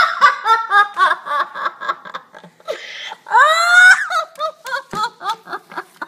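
Rapid, high-pitched laughter in quick bursts, then a louder call that rises and falls a little past the middle, followed by more short laughs.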